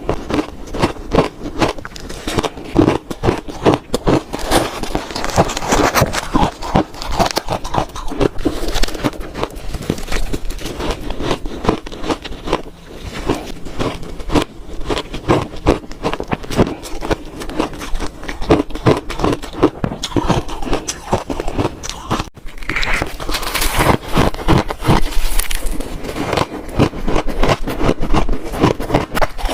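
Close-miked crunching of frozen shaved ice being bitten and chewed: a dense, continuous stream of sharp cracks and crackles, with a brief break a little over twenty seconds in.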